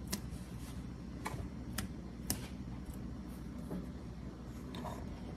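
A metal spoon tapping and scraping against an aluminium pot of rice as it is stirred: a handful of short, sharp clicks a second or so apart over a low steady hum.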